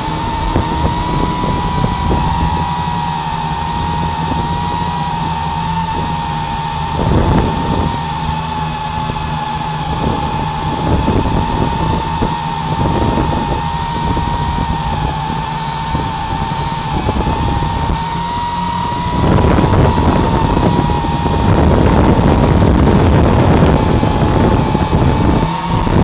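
Ares Ethos FPV quadcopter's motors and propellers whining steadily with a slightly wavering pitch, straining under the weight of an action camera hanging from it, heard through that camera with wind rushing over it. The rushing noise gets louder about 19 seconds in.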